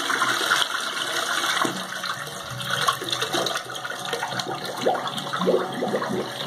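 Toilet flushing: water rushing and swirling down the ceramic bowl into the drain.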